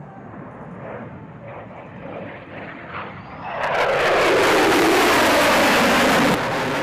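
F-35B Lightning II jet passing low and fast overhead: its F135 turbofan is heard at first as a moderate, steady jet noise, then about three and a half seconds in it swells suddenly to a loud jet roar whose tone sweeps down and back up as the jet passes. The noise drops off abruptly near the end.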